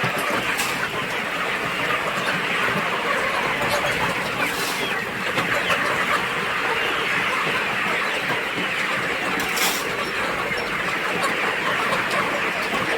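A large flock of young chickens, about ten to twelve weeks old, clucking and chattering steadily together.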